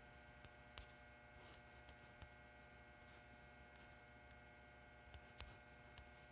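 Near silence: faint room tone with a steady low hum and a few soft, scattered clicks.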